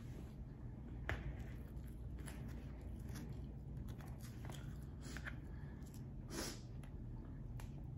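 Faint handling sounds as a cut cheeseburger half is picked up off a paper plate: scattered soft clicks and short rustles over a low steady hum.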